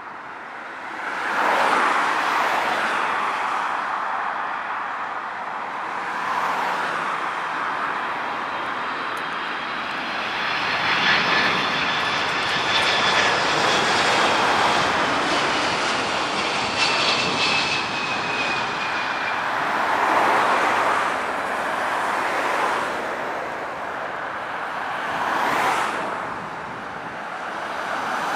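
Boeing 767-300 jet airliner on landing approach, its engines running with a loud steady rush as it passes low overhead. A high whine slides down in pitch as it goes by, about halfway through.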